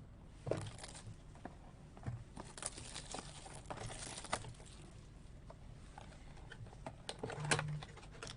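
Rustling and crinkling of packaging with scattered taps and clicks as a box of trading cards is handled and opened.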